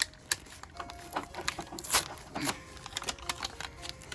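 Pokémon booster pack being handled and opened: scattered light crinkles and clicks of the foil wrapper and cards, irregular and spaced out.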